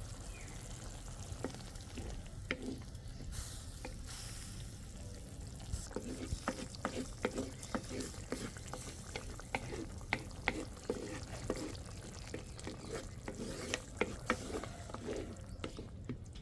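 A ladle stirring in a cooking pot, knocking against its sides in a quick, irregular run of clicks that starts about six seconds in.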